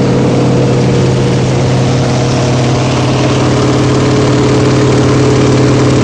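Antonov An-2's nine-cylinder Shvetsov ASh-62 radial engine and propeller running steadily in flight, heard inside the cockpit.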